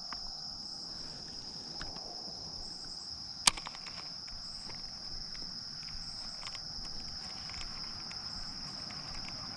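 Insects singing in a steady high-pitched chorus, with a single sharp click about three and a half seconds in.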